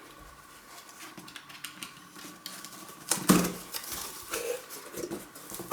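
Packaging being handled during an unboxing: soft rustling and light taps, with one sharper knock about three seconds in as something is set down or bumped.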